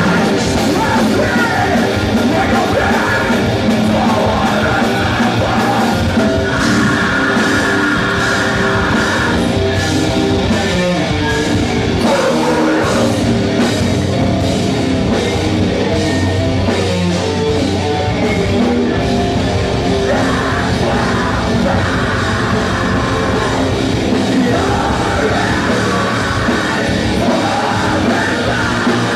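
Metalcore band playing live: distorted guitars, drums and yelled vocals.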